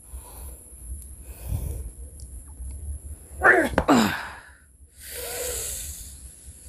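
A man's effortful vocal sounds: breathy puffs, then a loud cry falling in pitch about three and a half seconds in, followed by a long hissing exhale.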